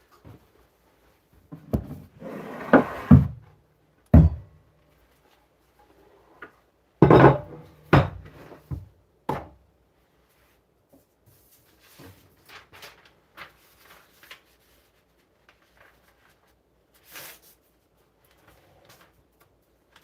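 Intermittent handling noises: sharp knocks and thuds with short rubbing or rustling sounds, loudest in the first half and fainter ticks later.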